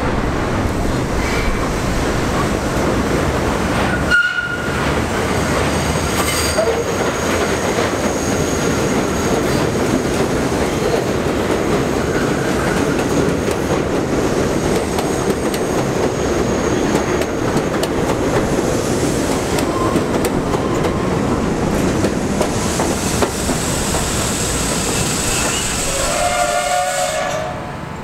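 R42 subway cars running past on elevated track, a steady loud rumble of wheels on rail. Near the end there is a short pitched tone from the train.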